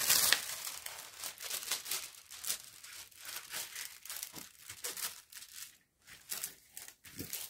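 Clear plastic protective film on a diamond painting canvas crinkling and rustling under hands smoothing it flat. It comes as a string of short rustles, the loudest right at the start.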